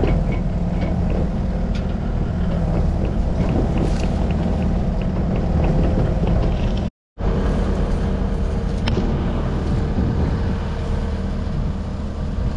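Diesel engine of a New Holland compact track loader (tracked skid steer) running steadily, heard close from the front of the machine. The sound breaks off completely for a fraction of a second about seven seconds in, then resumes unchanged.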